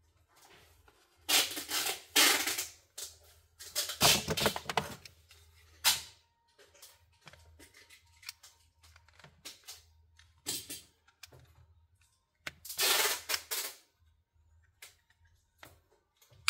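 Small phone parts being worked loose by hand: several bursts of peeling and scraping, about a second each, as glued flex cables and pieces are pulled from the Redmi 10's frame, with scattered sharp plastic clicks between them.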